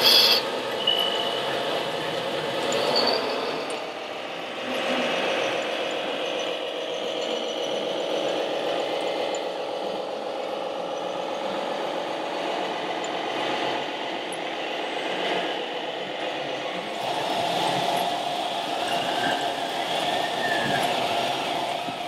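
Radio-controlled scale model construction machines running, their sound modules giving a steady simulated diesel-engine drone with some rattling. A sharp click comes right at the start, and the engine sound grows louder about three-quarters of the way in.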